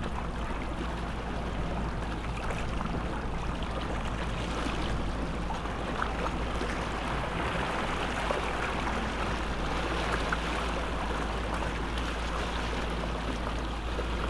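A motorboat's engine running steadily, with water rushing and splashing around the hull.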